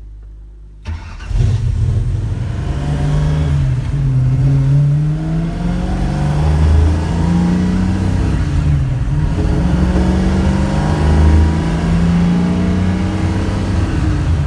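Classic Ford Mustang's engine accelerating through the gears of its manual gearbox: the revs climb and drop back at each upshift, several times over.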